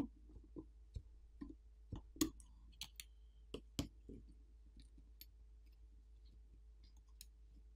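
Faint, scattered small clicks and taps of metal tweezers and fingers on a smartphone's internal parts as a coaxial cable connector is unclipped and the small subboard is pried up, busiest in the first four seconds and sparser after.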